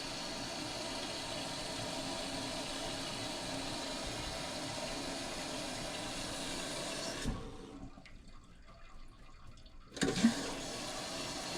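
Toilet tank fill valve running, a steady hiss of water flowing into the tank, that breaks off with a click about seven seconds in and comes back on after a short knock some two seconds later. The valve keeps running instead of shutting off, a fault the maintenance worker puts down to a bad fill valve.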